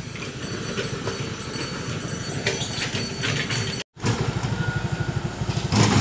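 Engine running with a steady, rapid low throb, broken by a brief dropout about four seconds in.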